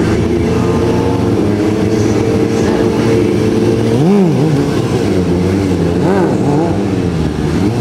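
Sportbike engines running steadily. About four seconds in, one engine is revved sharply up and back down, then again in quick blips around six seconds and near the end as the rider lifts the bike into a wheelie.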